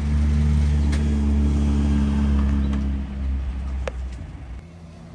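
Hydraulic liftgate of an enclosed car-hauler trailer running as the platform lowers: a steady low motor hum that dies away near the end, with a sharp click just before it stops.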